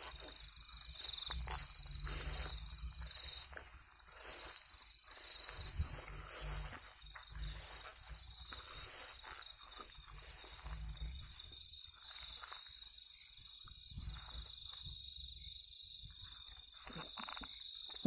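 Night insects calling in a steady high-pitched chorus of several continuous trilling tones, with a pulsing chirr joining about halfway through. Soft rustling and a few light knocks from people moving through the grass sound underneath.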